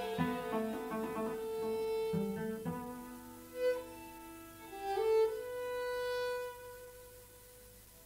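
Chamber music for a wind-and-string octet, led by bowed strings: a quick run of short notes in the lower register for the first few seconds, then long held notes that fade away near the end.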